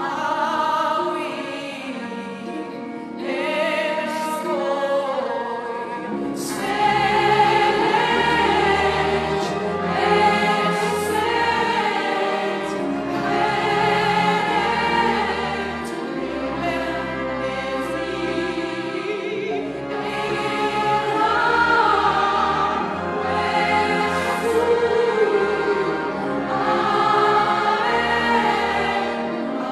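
Operatic soprano singing a hymn in ancient Egyptian with choir and orchestra; deep sustained bass notes come in about six seconds in.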